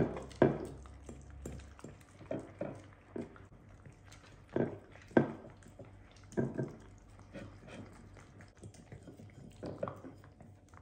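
Two miniature dachshunds eating raw meat from bowls: wet chewing and licking, with irregular sharp clicks and knocks as their muzzles and tongues work against the bowls, a few of them loud.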